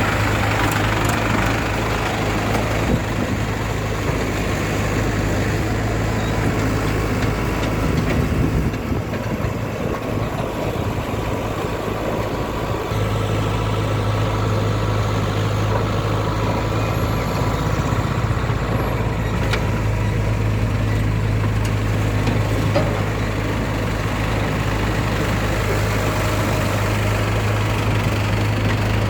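Heavy diesel engine running steadily with a deep, even hum that eases for a few seconds about a third of the way through, then settles back.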